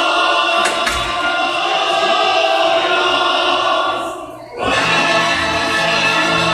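Music with a group of voices singing together, breaking off briefly about four and a half seconds in and then starting again.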